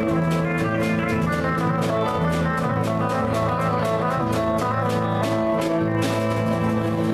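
Small live band playing an instrumental passage: electric bass holding long low notes under steadily strummed acoustic guitars and a drum kit.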